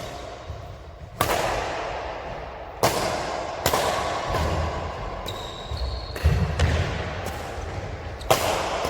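A series of sharp bangs at irregular intervals, about six in all, each trailing off with a ringing echo.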